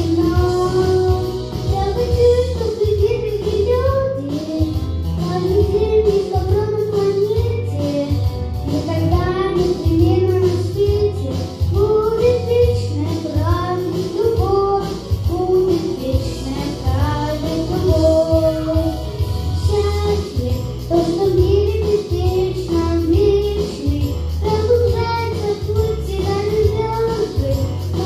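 A young boy singing a pop song into a microphone over a backing track with a steady bass beat.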